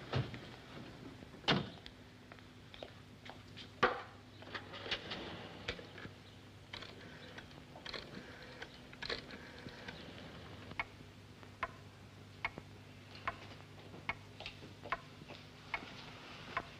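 A wall clock ticking evenly, a tick a little under a second apart, clearest in the second half. In the first half louder clicks and knocks come from a telephone being picked up and its rotary dial worked, all over a faint steady hum.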